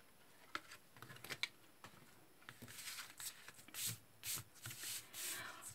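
Faint handling of stiff cardstock: a few light taps, then rustling and sliding as the card is picked up, turned and laid flat on a paper grid mat.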